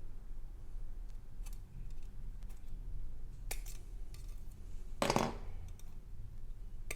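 Plastic parts of a Bandai snap-fit model kit being handled and pressed together: a few light clicks, then a louder plastic crunch about five seconds in as pieces are pushed into place.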